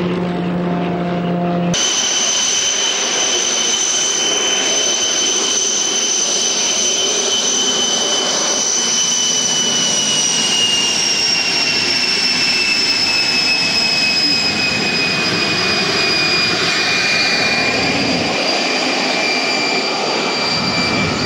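Canadair CT-133 Silver Star (T-33) jet trainer taxiing, its Rolls-Royce Nene turbojet running with a loud high whine in two steady tones that slowly drop in pitch after about ten seconds. The whine cuts in suddenly about two seconds in, replacing a lower steady engine hum.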